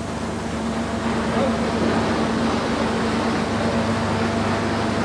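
Steady machine-shop din with a constant low hum, growing slightly louder.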